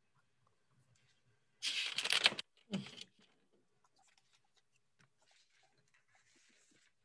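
Two short bursts of rustling, scraping handling noise close to a microphone, the second with a dull low knock, followed by faint scattered rustles.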